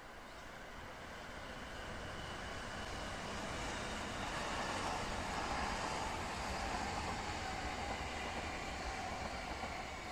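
Hamburg S-Bahn electric multiple-unit train running past on the track. Its rolling rumble grows louder over the first few seconds and then holds steady, with a faint high whine.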